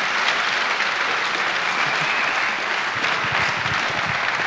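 Audience applauding, a steady spell of clapping.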